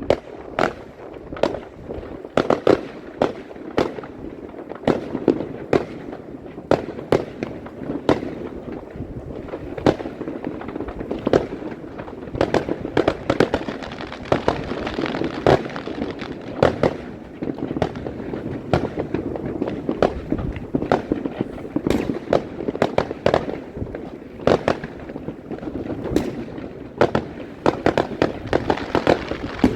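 New Year fireworks going off: many sharp bangs in irregular, quick succession over a continuous din.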